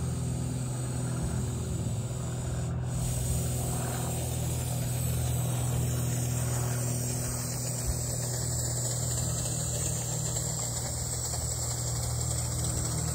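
Steady low mechanical hum with a light hiss over it.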